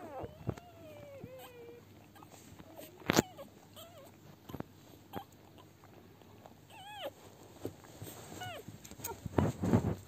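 Seven-day-old Lagotto Romagnolo puppies squeaking and whimpering while nursing: a few short, falling squeals, the clearest about seven seconds in. A sharp click comes about three seconds in, and a louder scuffle near the end.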